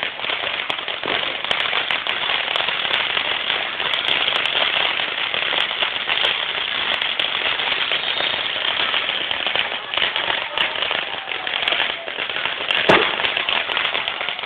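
Fireworks crackling densely and without a break, rapid pops running together, with one louder bang about thirteen seconds in.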